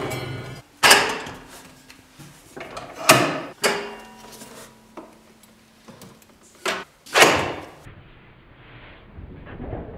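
Wooden and metal clunks as workbench-mounted power tools (a radial arm saw, a miter saw and a bench buffer on fold-down mounts) are handled and swung into place: about five sharp knocks with short rings, and lighter clatter between them.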